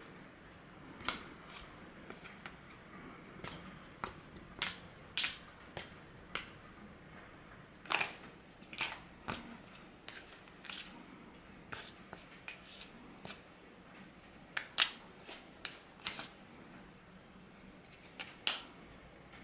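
A cat's paw batting a cardboard tissue-box lid: irregular sharp taps and slaps, some in quick pairs, in spells with short pauses between.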